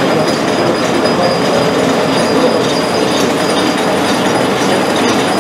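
Old belt-driven flour mill machinery running with a loud, steady mechanical clatter and a faint steady high whine.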